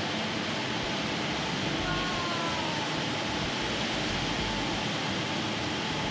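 The Rain Vortex, Jewel Changi Airport's tall indoor waterfall, pouring with a steady, even rush of falling water.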